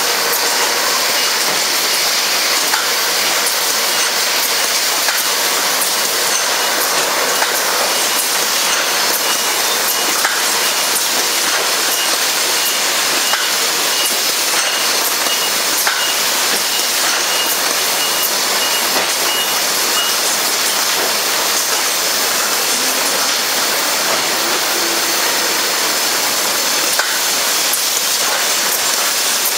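Steady hissing machine noise of a juice bottling production line running, with occasional light clicks. A faint series of short high pips sounds from about two seconds in until about twenty seconds.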